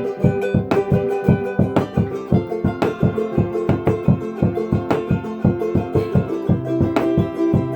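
Instrumental music to a Bolivian folk rhythm: acoustic guitar strummed in a quick, even rhythm, with a held melody line sounding over it and no singing.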